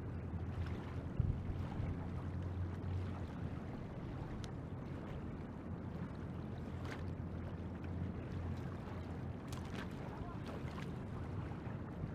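Steady low rumble of wind on the microphone over the rush of river water, with a few faint clicks.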